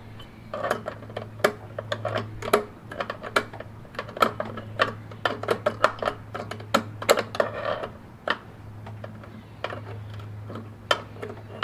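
Hand wrench turning and working a nut on a printer's sheet-steel chassis: irregular sharp metal clicks and ticks, a few a second, over a steady low hum.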